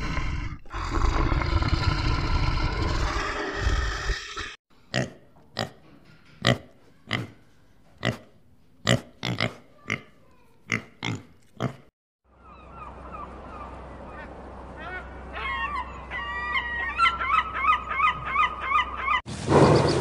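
A string of different animal sounds one after another. First a rough, noisy call lasting about four seconds, then a run of sharp clicks about one to two a second, then many short rising chirping calls over a low hum, and near the end a loud low call.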